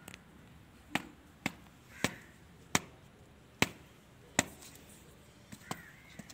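A string of about eight sharp knocks or taps at uneven intervals of roughly half a second to a second.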